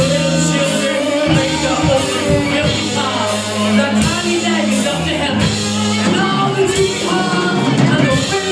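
Live rock band playing, with lead and rhythm electric guitars, bass guitar and a drum kit keeping a steady beat under a male lead vocal.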